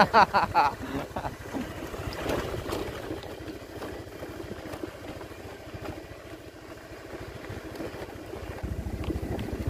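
Small motorcycle engine running at low speed, a steady low putter of firing pulses that grows a little louder near the end.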